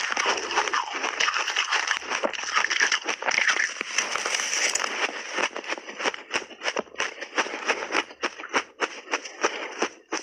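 Close-miked crunching and chewing of a big mouthful of shaved ice coated in buckwheat powder: a dense run of crackling crunches that turns into sharper, separate crunches about halfway through.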